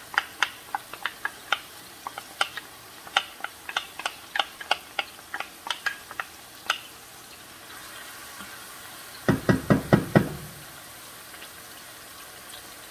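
Wooden spoon tapping and scraping against a plastic container as diced onion is knocked into a stainless steel skillet: a run of sharp clicks, about three a second, for the first several seconds. About nine seconds in comes a quick burst of heavier knocks, over a faint sizzle of garlic and onion frying in oil.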